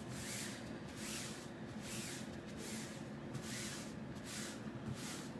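Fingertips rubbing over an adhesive Chalk Couture silk-screen transfer, pressing it down onto the surface: a regular series of soft swishes, about seven strokes, roughly one every three-quarters of a second.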